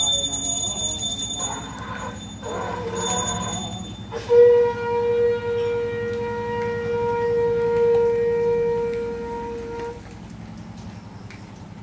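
Conch shell (shankha) blown as part of a Hindu puja: one long steady note that starts about four seconds in and holds for some six seconds before stopping. Before it, in the first few seconds, a bell rings.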